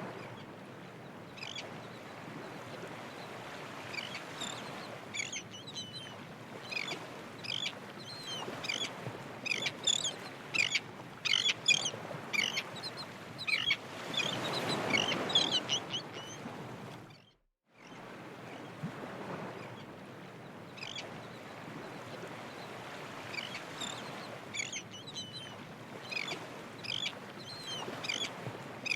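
Many birds calling, a flock's short chirps and squawks coming thick and fast over a steady rushing background that swells about halfway through. The sound cuts out for a moment a little past halfway, then the calls carry on.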